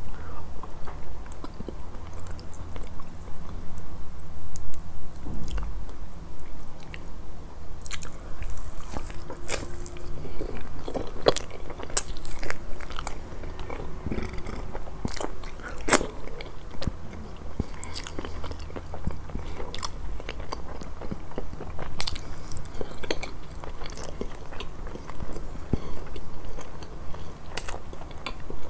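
Close-miked eating of a grilled-fish meal: chewing and biting with irregular crisp crunches and mouth clicks.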